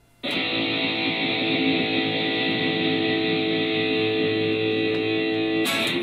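Electric guitar played through a Positive Grid Spark 40 amp. A chord is struck about a quarter second in and rings on steadily for over five seconds, then a fresh strum comes near the end.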